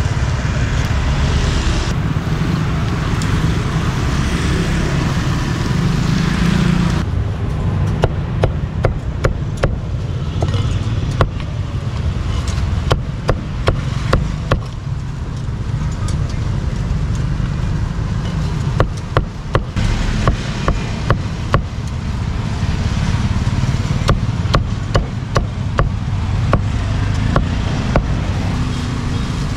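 Heavy meat cleaver chopping grilled pork on a thick wooden chopping block, sharp chops coming two or three a second in runs with short pauses, starting about seven seconds in. Before that, and under the chops, there is a steady hiss and low rumble of road traffic.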